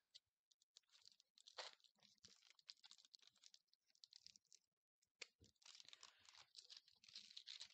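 Faint crinkling and rustling of a plastic piping bag being twisted closed by hand, in scattered small crackles.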